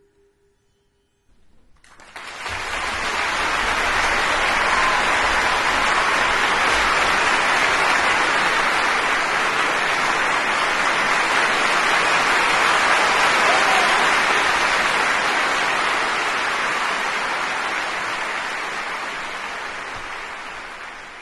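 Concert audience applauding: dense, steady clapping that breaks out about a second and a half in, after the last faint ringing of the music dies away, and fades out near the end.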